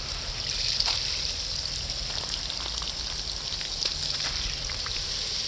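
Steady hiss of water spraying from a hose onto potted plants, with a faint pattering of drops.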